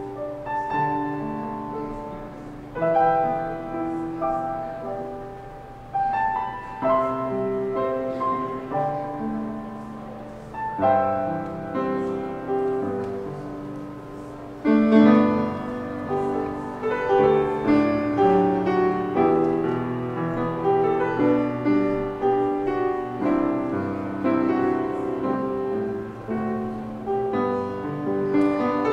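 Piano music: chords and melody notes struck and left to fade, changing about once a second, growing fuller and louder about halfway through.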